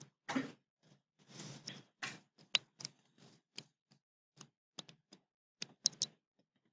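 Faint, scattered light clicks and taps at an irregular pace, with a few short rustles in the first two seconds; the sharpest click comes about two and a half seconds in.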